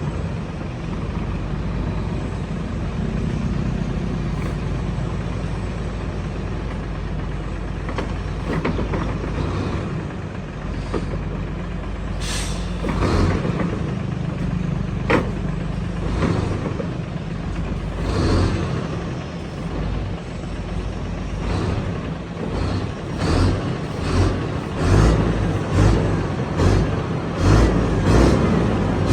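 Heavy diesel truck engine running, with short bursts of air hiss about halfway through; near the end the engine sound pulses about once a second.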